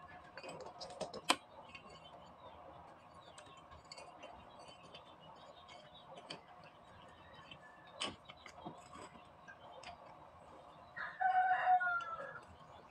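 Light metal clicks and knocks as a starter motor's solenoid and housing are handled and fitted together. About eleven seconds in, a rooster crows once, the loudest sound here.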